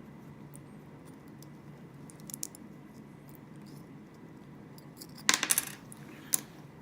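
Small hard parts of an opened key fob and its coin-cell battery clicking and clattering, with a few faint ticks, then a quick rattle of sharp clicks about five seconds in, like a coin cell dropping onto a hard surface, and one more click shortly after.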